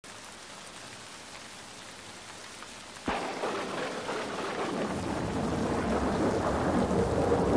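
Steady rain hiss. About three seconds in, a sharp crack of thunder breaks in and rolls on, growing louder toward the end.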